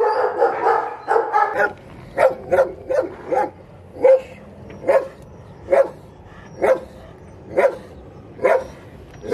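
Dogs barking and yipping over one another for about the first second and a half, then a single dog barking at a steady pace, about one bark a second.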